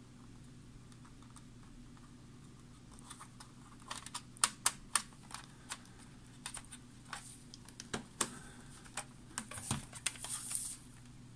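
Fingers pressing a new stick-on rubber foot onto the plastic bottom cover of a Dell Latitude E6400 laptop. A few seconds of faint room hum give way to irregular light clicks and taps of fingertips and nails on the plastic, with a brief rubbing near the end.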